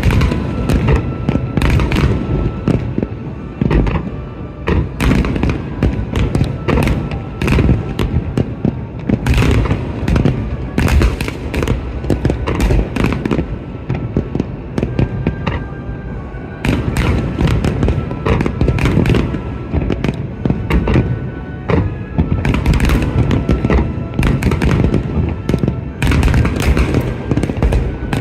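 Fireworks display: aerial shells bursting in a dense, continuous barrage of bangs and crackles over a low, rolling rumble.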